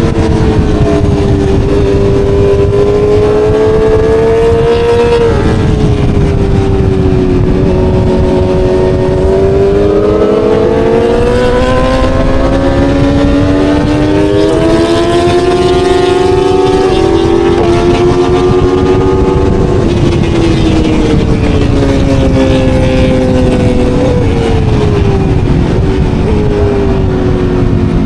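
Aprilia Tuono V4 motorcycle's V4 engine running hard on track, its pitch rising and falling through acceleration and braking, with a few sudden pitch jumps at gear changes, over a constant low wind rumble.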